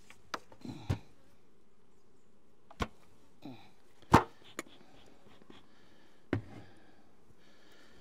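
A handful of sharp knocks and clicks from a plastic beehive lid being lifted off and set down, the loudest about four seconds in, over a faint buzz of honey bees from the opened hive.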